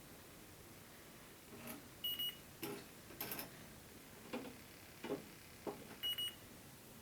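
Electronic refrigerant leak detector ticking slowly and irregularly, with a short high beep about two seconds in and again about six seconds in. The slow ticking means it is picking up no refrigerant at this spot.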